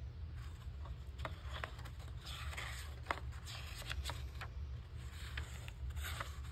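Paper rustling and crinkling as a picture book's page is handled and turned, a scatter of short rustles and light taps over a low steady hum.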